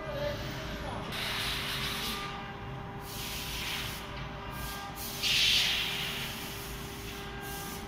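Bursts of hissing noise come and go several times over a steady hum; the strongest burst is about five seconds in.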